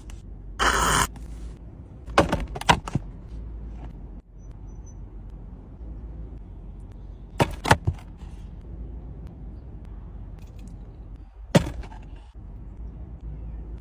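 A few sharp clicks and crackles of takeaway food and its paper cup and box being handled, over a steady low hum, with a short burst of rustling noise about a second in.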